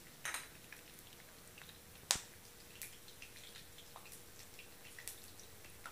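Mustard seeds in hot oil in an earthenware pot, sizzling faintly with scattered small pops as they start to splutter; one sharp pop about two seconds in is the loudest.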